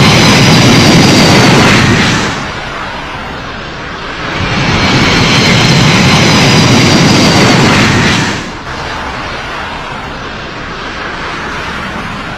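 Antonov An-225's Progress D-18T turbofan engines: a loud rush of jet noise with a faint high whine, heavy for the first two seconds and again from about four to eight seconds in, dropping to a lower steady rumble between and after.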